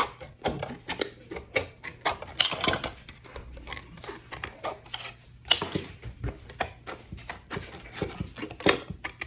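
Irregular clicks, snaps and scraping from thin plastic kit parts being cut and handled, with a few sharper snaps among them.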